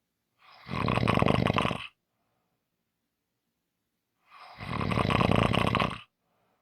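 A person snoring: two loud snores, each about a second and a half long and about four seconds apart, with faint breathing between them.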